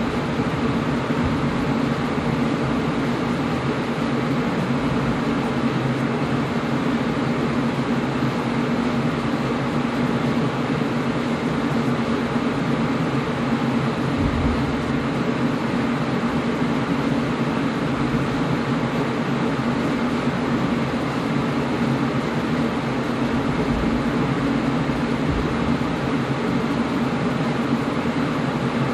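Air conditioner running steadily: an even whooshing noise with a low hum, unchanging throughout.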